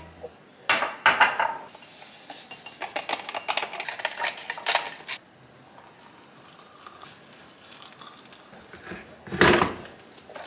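Ceramic mugs and an electric kettle handled on a kitchen counter: clinks, a run of rattling clatter for the first few seconds, then a quiet pour of water into the mugs. About 9.5 s in, the kettle is set back on its base with a single loud knock.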